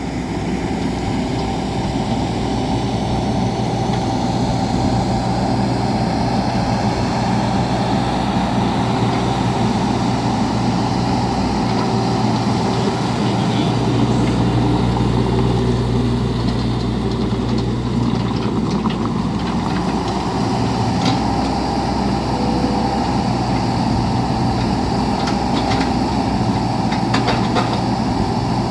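Bobcat E26 mini excavator's diesel engine running steadily, with a few light clicks in the second half.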